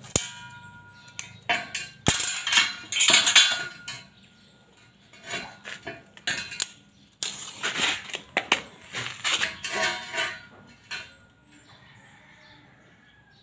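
Irregular metallic clanks, clinks and scrapes in several clusters as a steel pipe and pieces of scrap steel are handled and shifted about.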